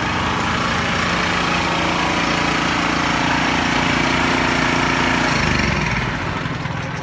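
Two portable gasoline generators running together, a Champion 4000 and a Honda EU3000is inverter generator, with a steady engine hum. About five and a half seconds in the engine note changes and the sound gets noticeably quieter as the Honda's eco throttle setting takes effect.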